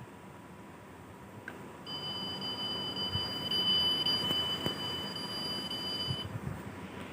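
A steady high-pitched electronic buzzer tone, held for about four seconds, starting about two seconds in and cutting off near the end, from a battery-powered toy car.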